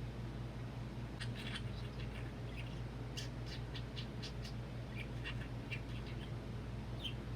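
Pet budgerigar chattering: a run of short, quick chirps and clicks starting about a second in, over a steady low hum.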